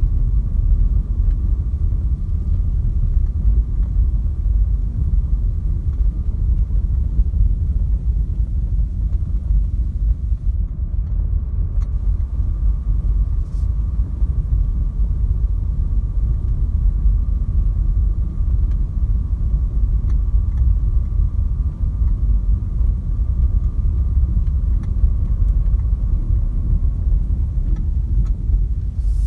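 Renault Clio 4 with the 1.5 dCi 90 four-cylinder turbodiesel driving, heard from inside the cabin: a steady low rumble of engine and road noise, with a faint steady whine above it.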